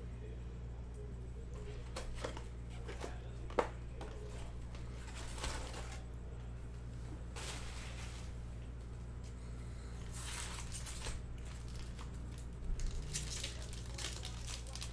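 Sports-card packaging being handled: plastic wrap crinkling and tearing in scattered short bursts, with a sharp click about three and a half seconds in, over a steady low hum.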